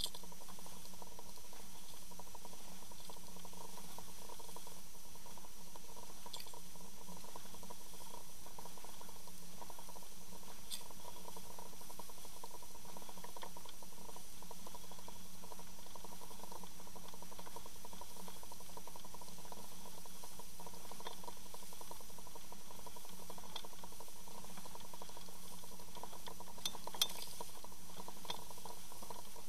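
Underwater ambience beside a boat's hull picked up by a submerged camera: a steady hum with fine bubbly crackling and a few scattered sharp ticks, a small cluster of ticks near the end.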